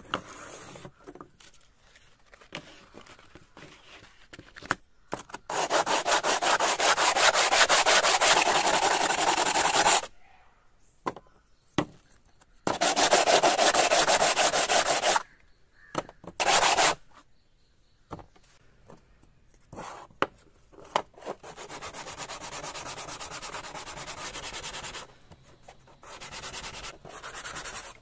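Coconut shell being sanded by hand on sandpaper: quick back-and-forth rasping strokes in bursts of a few seconds with pauses between, softer near the end.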